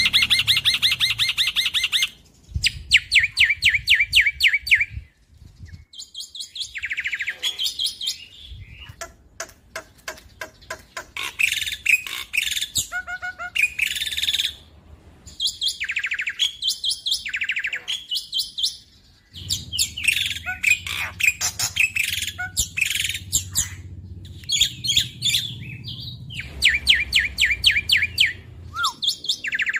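Black-winged myna singing: phrase after phrase of fast, rattling repeated notes and chatter, each a second or two long with short breaks between.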